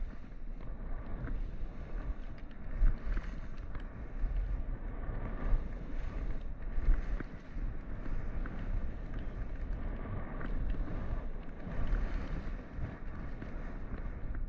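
Skis running through fresh powder snow with a rushing hiss, and wind buffeting the helmet-mounted microphone with a low rumble; the noise swells and dips unevenly.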